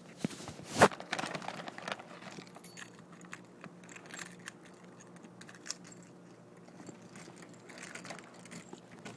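Handling noise from a phone jostling inside a purse as it is carried: rustling fabric and scattered small clicks and clinks, with one sharp knock just under a second in.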